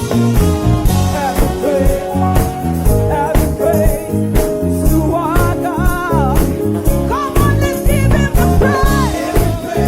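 Live band playing an upbeat praise song with a steady beat, drums, bass and keyboards, with a lead vocal line coming in and out.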